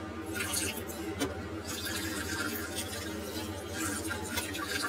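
Water pouring in a steady stream from an electric kettle over a geoduck clam and splashing into a glass bowl.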